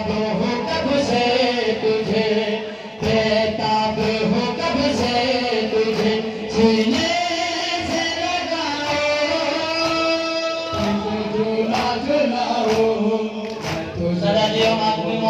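A noha, the Shia lament, sung by a male reciter in long, held, gliding notes over a musical backing.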